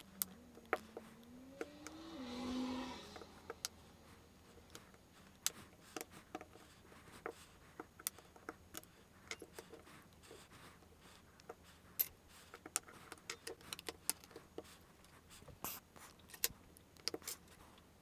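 Faint, scattered sharp clicks and snaps as the plastic clips of a Samsung Galaxy Tab A tablet's back cover are pried apart with a metal pry tool and the cover is lifted off. About two seconds in there is a brief rising tone with a rustle.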